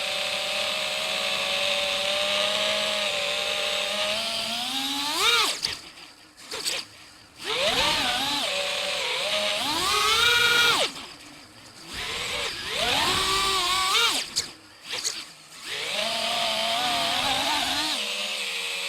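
Brushless motors and propellers of a 5-inch FPV quadcopter (Armattan Badger), picked up by the drone's onboard DJI Air Unit. The motors whine steadily at first, then rev sharply up and down with the throttle. Three times the throttle is chopped and the whine drops away briefly before rising again.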